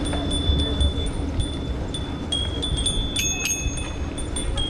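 Bicycle bells ringing again and again, with several bells of different pitches sounding together about three seconds in, over wind and road rumble from a moving bike.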